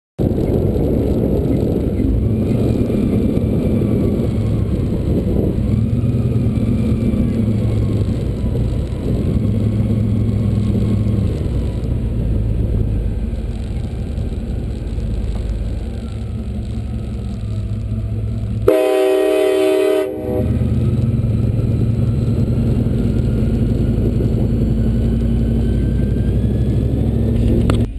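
Steady low rumble of a vehicle driving. About two-thirds of the way through, a K5LA five-chime train horn sounds one loud blast lasting about a second and a half.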